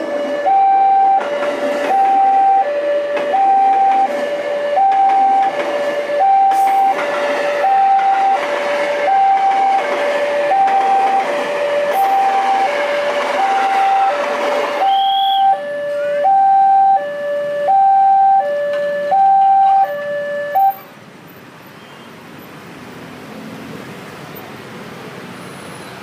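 Railway level-crossing alarm sounding a loud high-low two-tone chime, about one high-low pair a second, while a train passes through with a loud rushing noise over the middle stretch. The alarm stops about 21 seconds in, leaving a faint steady hiss.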